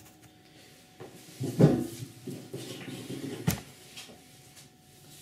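Handling noises: a few brief knocks and rustles as resin model parts are moved on paper, with a dull thump about a second and a half in and a sharp click about three and a half seconds in.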